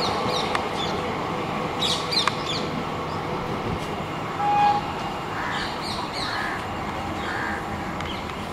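Crows cawing in several short bursts over the steady, fading rumble of a departing passenger train's coaches. A brief steady tone sounds about halfway through.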